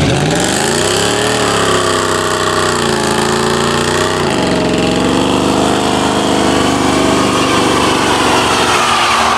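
V8 muscle car engine revved hard and held at high revs over a steady hiss. Its pitch climbs in the first second or so, dips twice, then creeps up and holds.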